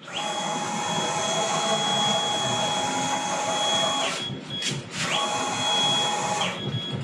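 Laguna IQ CNC router's axis motors driving the gantry and spindle into position: a steady mechanical whine that glides down in pitch as a move stops, pauses for about a second, then glides back up as the next move starts, and glides down again near the end.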